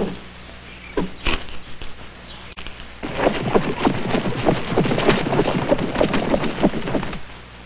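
Irregular knocks and clatter: a few single sharp knocks, then a dense run of them for about four seconds, over a low steady hum.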